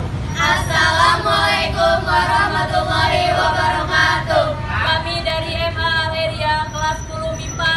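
A group of young women singing together in unison, over a steady low rumble underneath.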